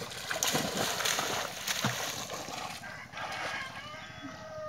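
Water splashing as a boy plunges into a pond and goes under. A long steady call follows faintly in the background.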